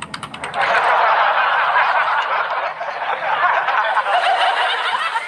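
Laughter from many voices overlapping at once, like a laugh track, starting about half a second in.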